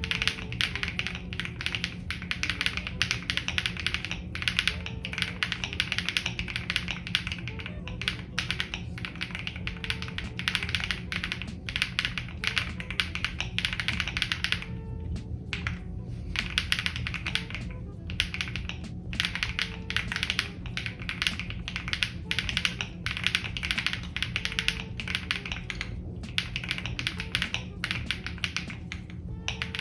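Continuous fast typing on a gasket-mounted Enter67 mechanical keyboard with a polycarbonate plate, Milkyway Yogurt keycaps and OW stabilizers: a dense run of key clacks with a couple of short pauses about halfway through. It is a foam-dampened build that the uploader likens to the 'mahjong' or 'stone' sound. Music plays underneath.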